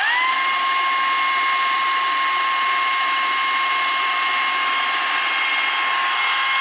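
Makita cordless electric chainsaw running at full speed with no load, chain spinning free: a steady high whine of motor and chain that finishes rising in pitch just after it starts, then holds steady.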